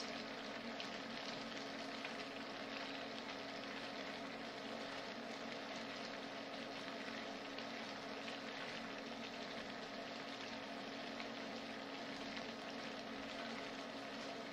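Kale sizzling as it wilts in a frying pan, stirred with a silicone spoon, over a steady low hum.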